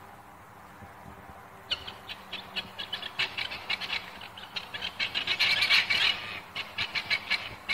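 Several helmeted guinea fowl calling in a fast, rattling chatter of short cries. It starts about two seconds in and grows into a dense, loud racket past the middle.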